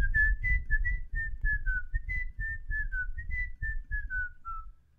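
Someone whistling a quick, wandering tune of short notes, about three a second, that stops shortly before the end. An uneven low rumble of noise runs underneath.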